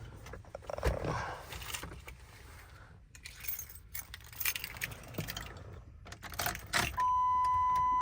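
A bunch of keys jangling and clicking as they are handled. About a second before the end, a steady, high electronic warning tone from the truck starts and holds.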